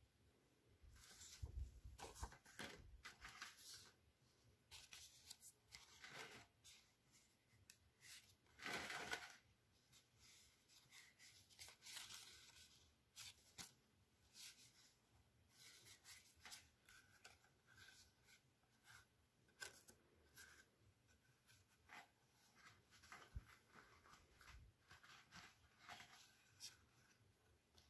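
Faint, irregular rustling and soft taps of cardstock being handled as a folded 3D box card's flaps are opened and folded by hand, with a louder rustle about nine seconds in.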